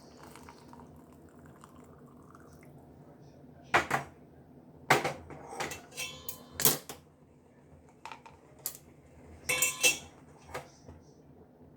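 Kitchen utensils clinking and knocking against a cup and pan as the kada is strained. The clinks start about four seconds in, with about ten sharp clinks and knocks spread over the next seven seconds, a few ringing briefly.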